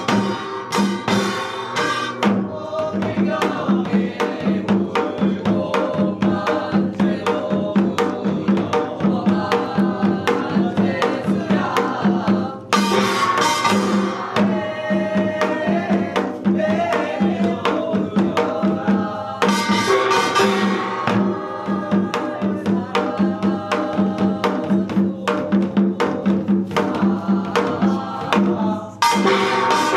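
Korean traditional percussion, janggu hourglass drums and a buk barrel drum, keeping a fast, steady beat under a sung binari chant. The sound grows brighter and fuller twice, about 13 and 20 seconds in.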